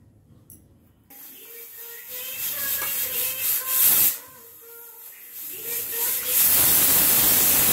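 Aluminium pressure cooker venting steam through its weight valve: a hiss that builds for about three seconds, eases off, then blows as a loud full whistle near the end and stops suddenly. This is the cooker reaching pressure and giving its whistle.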